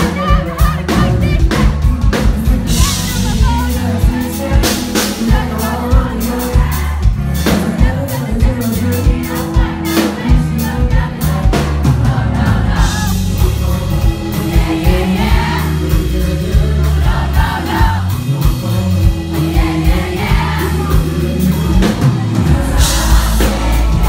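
Loud live pop-rock band with drum kit and electric guitar, and a male lead singer's voice through the PA, heard from within the audience.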